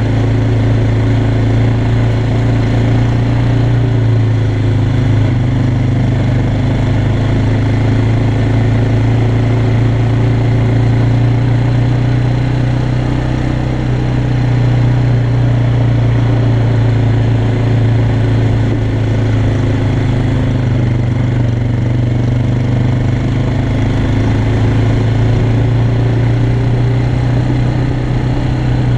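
Yamaha Bear Tracker 250 quad's single-cylinder four-stroke engine running steadily under load as it climbs a gravel track, heard from on board the machine. Its pitch dips a little about halfway and rises again.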